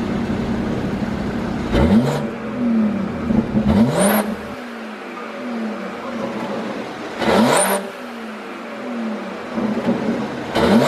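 BMW 540i's turbocharged 3.0-litre inline-six, tuned for overrun pops, revved in four quick blips from idle. Each time the revs fall back, the exhaust pops and crackles.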